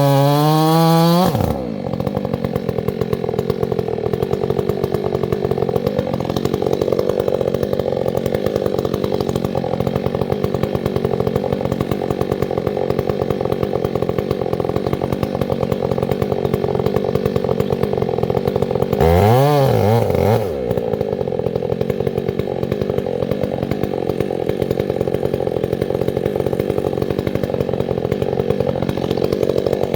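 Chainsaw engine revving high, then dropping to a rough idle about a second and a half in; it idles steadily, with one short blip of the throttle, up and back down, about two thirds of the way through.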